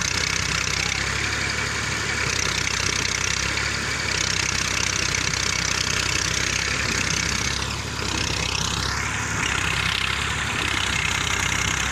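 Farm tractor's diesel engine running steadily. About eight seconds in, a brief whine dips and then rises.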